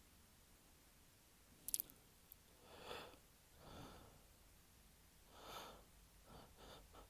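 A man's heavy breaths and sniffs as a sneeze builds: a few drawn-out breaths from about three seconds in, then quicker short sniffs near the end. A sharp click, the loudest sound, comes just under two seconds in.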